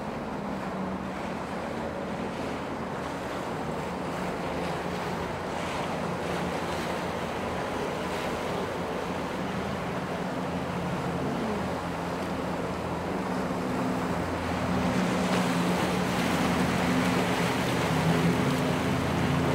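Motorboat engines running over the rush of waves and wind noise, the engine sound growing louder in the last few seconds.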